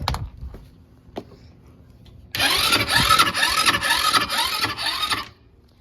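A short knock, then about a second and a half later the ATV's engine cranks on its starter for about three seconds in a quick rhythmic churn and stops suddenly without catching: the engine will not start.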